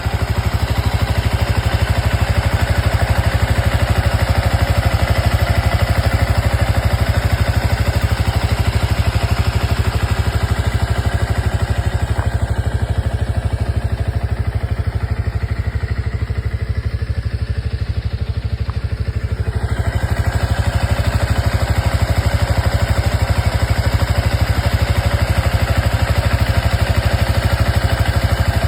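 Bera DR160X motorcycle engine running at a steady speed with a rapid, even exhaust pulse. The upper part of the sound dips for several seconds around the middle.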